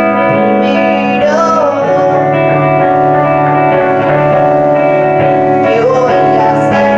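Live band music: electric guitars playing sustained, ringing chords, with a voice singing a short line about a second in and again near the end.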